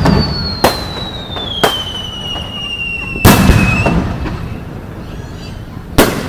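Aerial fireworks bursting: four sharp bangs with echoing tails, the third the loudest. A long whistle falling slowly in pitch runs under the first three bangs.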